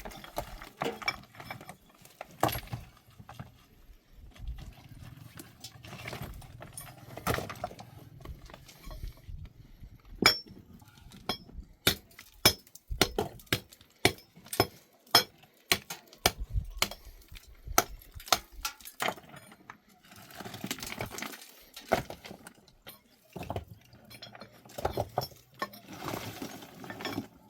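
Irregular sharp clinks and knocks of hand tools working stone and cement, coming thick and fast through the middle.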